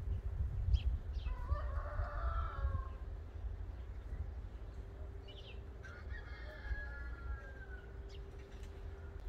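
A rooster crowing twice, each crow about a second and a half long, some four seconds apart, over a steady low rumble.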